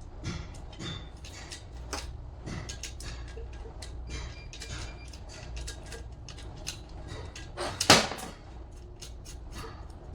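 Scattered clicks and light knocks of tools and metal parts being handled, with one loud knock about eight seconds in, over a low steady hum.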